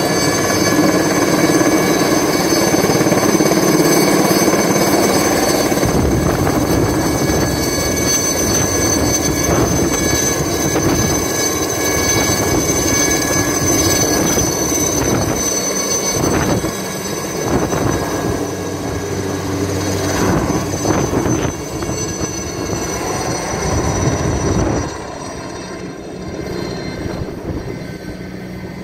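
Alouette III helicopter flying low and close, its Turbomeca Artouste turboshaft whining steadily over the rotor's chop. The sound drops sharply in level about 25 seconds in, as the helicopter moves away.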